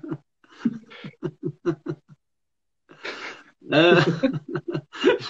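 A man laughing: a run of short chuckles, a brief pause, then a louder stretch of laughter near the end.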